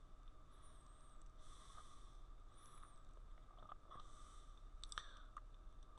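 Near silence: faint steady room tone and hiss, with a few faint clicks in the second half.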